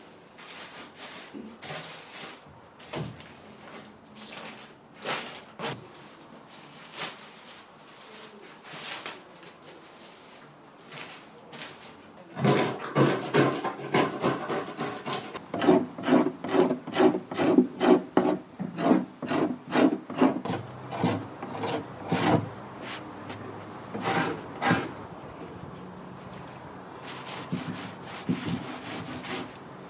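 Wood being worked by hand with a rasping, abrasive tool in repeated back-and-forth strokes, as when stripping an old wooden chest. The strokes are light and scattered at first. About twelve seconds in they become louder and faster, several a second, and they ease off again near the end.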